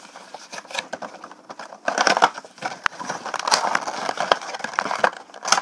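Cardboard Funko Pop window box being opened by hand, its flaps and clear plastic insert rustling and crinkling, with irregular clicks and scrapes.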